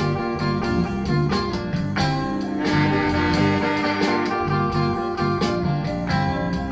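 Blues band playing with electric guitar to the fore over bass and a steady drum beat.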